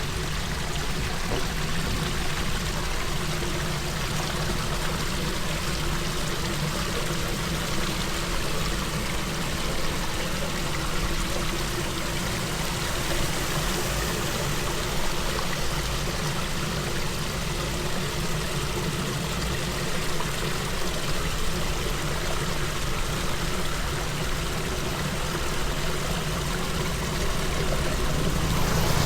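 Floodwater flowing and pouring steadily, an even rushing without break.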